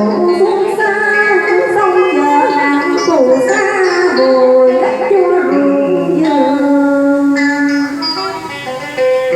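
Instrumental đờn ca tài tử music: plucked string instruments play a melody full of sliding, bent notes.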